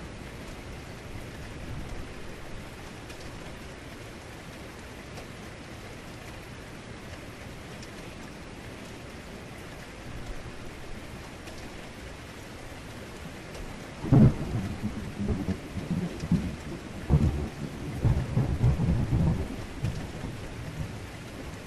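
Steady heavy rain, then about fourteen seconds in a loud thunderclap starts suddenly and rumbles on in repeated surges over the rain.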